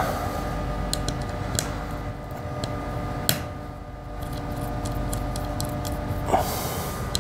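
A few faint sharp clicks and taps as decorative screw caps are turned by hand onto the fixing screws of a slate nameplate, with a brief scrape near the end, over a steady low hum.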